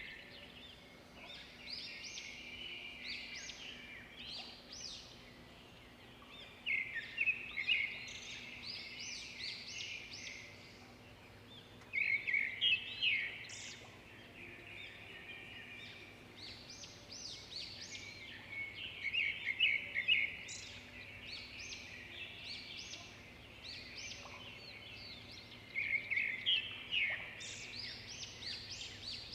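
Songbirds chirping and singing, with a quick run of rapid chirps coming back about every six or seven seconds and scattered single chirps in between.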